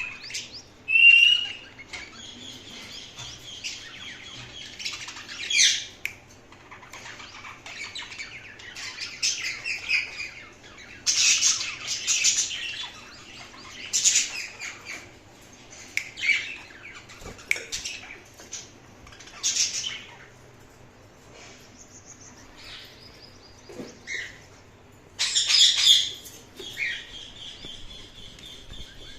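Indian ringneck parrot chirping and calling in high-pitched bursts every few seconds, with quieter chattering between the louder calls.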